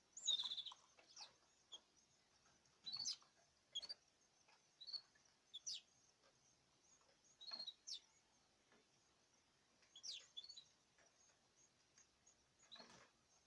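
Cage birds giving short, high chirps and quick downward-sweeping calls at irregular intervals, with quiet gaps between them.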